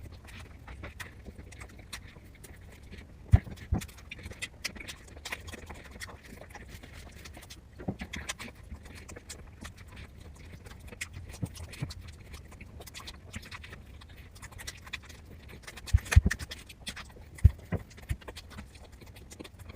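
Close-miked eating sounds: sparse clicks and smacks of chewing, with a few sharper ticks, over a low steady hum.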